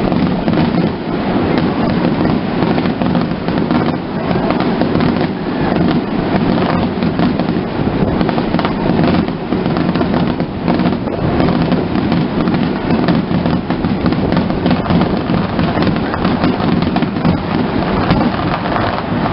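A fireworks finale barrage: aerial shells bursting one over another with no pause, their booms merging into a continuous rumble with dense crackling throughout.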